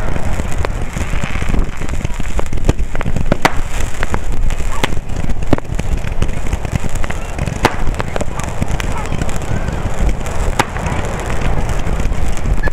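A fireworks display going off in a dense barrage: sharp cracks about once a second over a continuous heavy low rumble.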